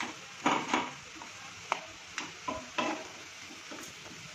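Giant freshwater prawns sizzling in a nonstick pan as the last of their cooking water boils off, with a wooden spatula scraping and knocking against the pan about seven times in the first three seconds, then steady sizzling.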